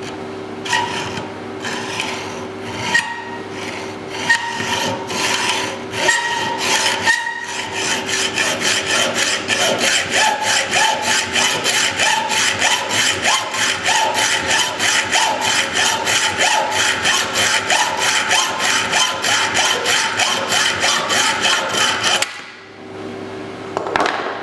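Hand tool rasping metal in back-and-forth strokes, like filing or hand sawing. It starts with a few slow, uneven strokes, then settles into a fast, even rhythm of about three strokes a second. It stops suddenly near the end, with one last stroke after a short pause.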